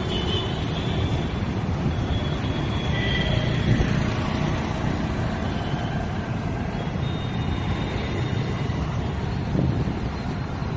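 Steady street traffic: the continuous rumble of motor scooters and other vehicles passing on a city road, with a few faint brief higher tones over it.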